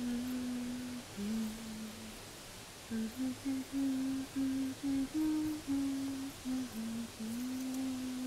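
A woman humming a slow, simple tune: a long held note, then a lower one, a short pause, a run of short stepped notes, and another long held note near the end.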